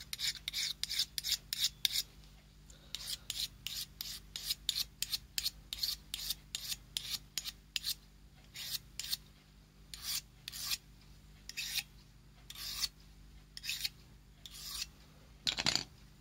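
Diamond needle file scraping along the steel edge of an AKM 6Kh3 bayonet, honing it sharper. It makes short scraping strokes, about four a second at first, thinning to roughly one a second from about ten seconds in.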